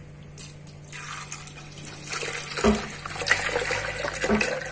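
Milk pouring from a carton into a blender jug, starting about two seconds in and growing louder, with a couple of low knocks.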